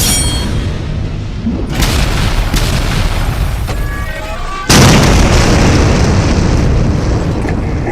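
Explosion sound effects booming and rumbling, with a fresh blast about two seconds in and a sharper, louder one about halfway through that rumbles on and slowly fades.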